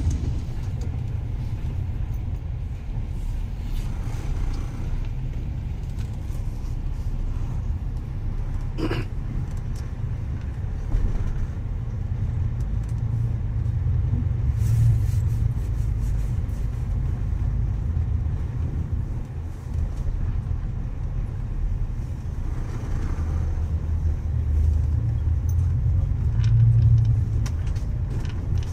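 Cabin noise of a moving double-decker bus: a steady low engine and road rumble that swells twice as the bus pulls along, with a single sharp click about nine seconds in.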